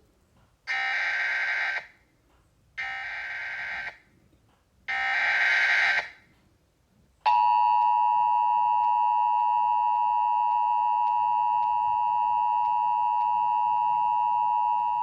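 Emergency Alert System header: three short bursts of SAME data tones, each about a second long, then the two-tone EAS attention signal, a steady, piercing dual tone that runs about eight seconds and stops suddenly. It announces the severe thunderstorm warning message that follows.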